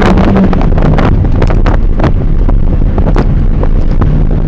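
Lada Kalina pulling hard under full throttle from a standing start in a 0–100 km/h acceleration run, engine running at high revs under heavy road and wind noise, with clicks and knocks throughout.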